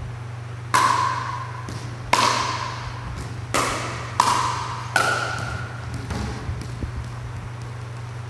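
Pickleball rally: paddles hitting the plastic ball with sharp pops, five in about four seconds, each ringing briefly. A steady low hum runs underneath.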